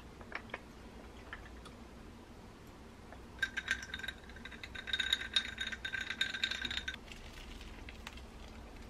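Ice cubes clinking and rattling in a glass tumbler of apple juice as it is stirred and swirled. A few light clinks come in the first second, then from about three and a half seconds in, some three seconds of quick rattling with the glass ringing, which stops suddenly.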